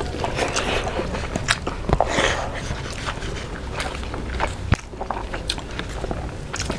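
Close-miked eating sounds: chewing and biting with many short, wet mouth clicks, and fingers mixing rice with fish curry.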